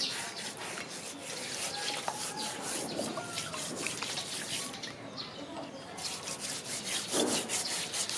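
Hands rubbing and scrubbing salt over a wet rack of raw pork ribs in a plastic basin of water: a run of quick scratchy rubbing strokes with small splashes of water.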